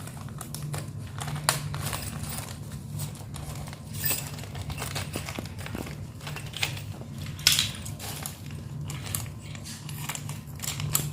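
Packaging rustling and crinkling, with scattered light clicks and clinks of small metal parts as the drill's chuck key and bits are handled, over a steady low hum.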